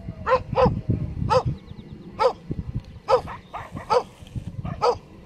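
A Komondor barking in short single barks, seven loud ones roughly a second apart with a few fainter ones between them.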